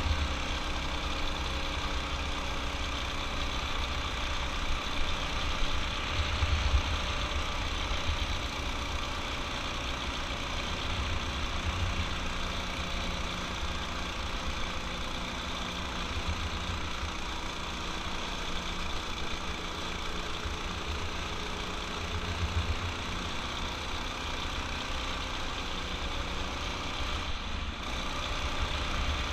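Off-road go-kart's small engine running at speed through its torque converter drive, heard from the seat, with wind on the microphone making low rumbling swells now and then.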